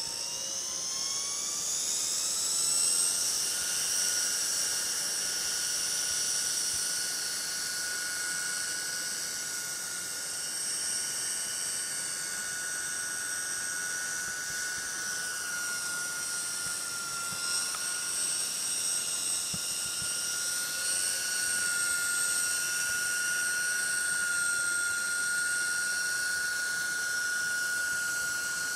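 Small coaxial RC helicopter hovering at low rotor head speed: a high motor and rotor whine that rises in pitch over the first few seconds as it spools up, then holds steady, dipping briefly about halfway through.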